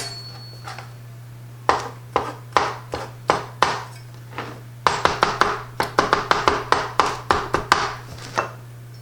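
Knife chopping on a cutting board, likely jalapeños: a few separate strokes, then a faster run of about three chops a second.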